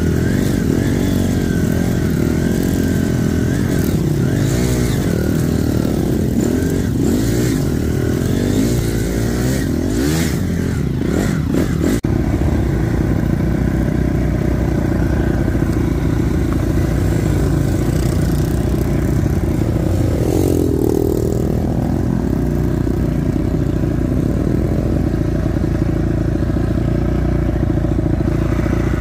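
Honda CRF250 dirt bike's single-cylinder four-stroke engine running hard while ridden, its revs rising and falling over and over. A few sharp knocks come about ten to twelve seconds in.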